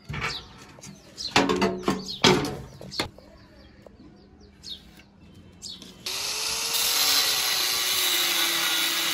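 Several metal clanks with short ringing as a flat steel bar is set down and handled on a workbench. About six seconds in, an angle grinder with a thin cutting disc starts cutting into the steel bar clamped in a vise, a loud steady hiss with a faint wavering whine under it.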